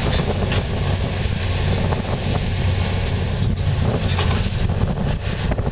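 Tracked hydraulic excavator's diesel engine running with a steady low drone, a thin whine over it for a couple of seconds from about a second in, and a few short clatters during demolition work.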